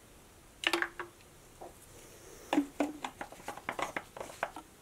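Sharp plastic clicks and taps from hands handling a small chainsaw's plastic fuel tank and its cap: a few clicks about a second in, then a quick run of clicks and knocks through the second half.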